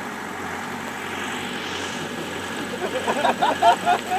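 Telescopic boom lift running steadily as its boom extends and swings the basket up. A voice calls out briefly about three seconds in.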